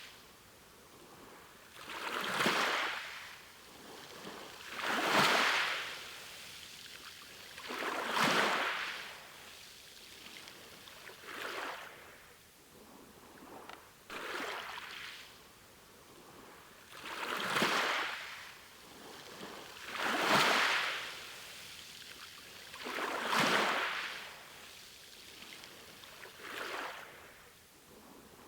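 Sea waves washing in, one swell of surf about every three seconds, each rising and falling away over a second or two.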